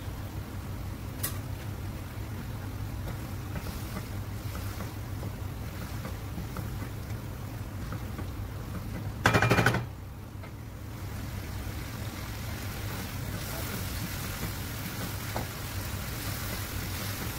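Steady low hum and hiss from a gas stove while chicken karahi cooks in a nonstick wok. A wooden spoon stirs the pan. A short, loud pitched sound lasting about half a second comes a little past halfway.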